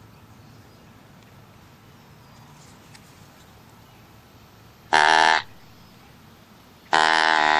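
Handmade deer call with a turned wooden barrel and a flexible corrugated tube, blown twice: a short steady-pitched call about five seconds in, then a longer one near the end.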